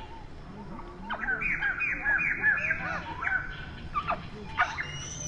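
A quick run of high chirping animal calls, several a second for about two seconds, followed by a few sharper rising calls near the end.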